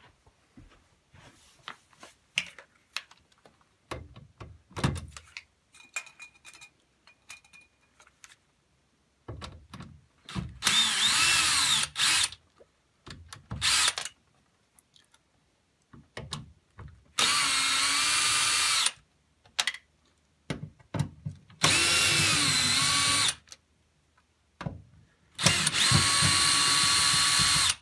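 Cordless power drill-driver backing out the four screws that hold the TV's main board assembly. It runs in four loud spells of a couple of seconds each, with one short burst between the first two, its whine dipping in pitch as it bites and then picking back up. Light clicks and handling come before the first run.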